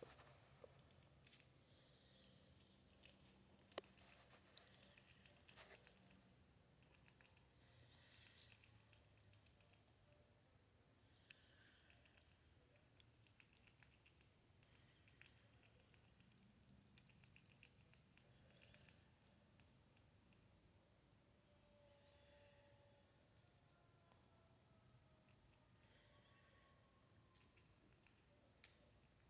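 Faint, high insect chirping, one even pulse a little over once a second, with a few soft clicks.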